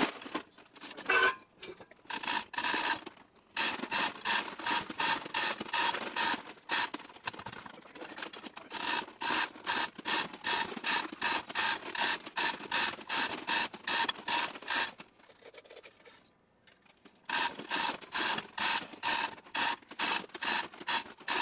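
Manual chain hoist being hauled hand over hand to lift a metal lathe: a steady rhythm of metallic clicking and chain rattle, about two to three strokes a second. It stops for a couple of seconds about fifteen seconds in, then starts again.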